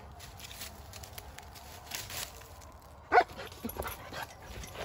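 A dog gives one short, sharp bark about three seconds in, with a few fainter short sounds around it.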